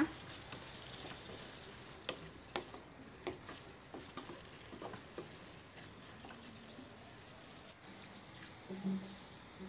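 Vegetables sizzling faintly in a wok while a wooden spatula stirs and tosses them. Light clicks and scrapes of the spatula against the pan come mostly in the first half.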